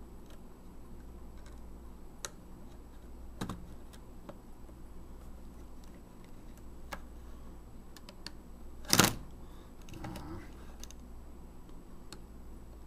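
Scattered light clicks and taps of a small precision screwdriver and metal parts of a disassembled compact digital camera being handled, with one much louder sharp knock about two-thirds of the way through. A low steady hum runs underneath.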